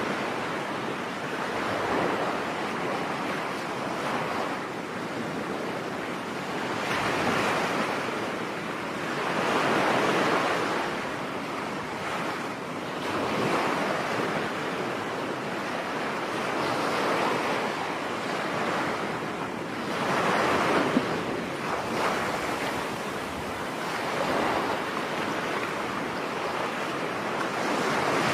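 Ocean waves breaking and washing up on a beach, the surf swelling and easing every few seconds.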